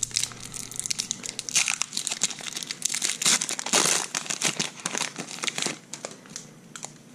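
A foil-lined Pokémon trading card booster pack being torn open and its wrapper crinkled as the cards are pulled out: quick crackling, thickest in the middle and dying away near the end.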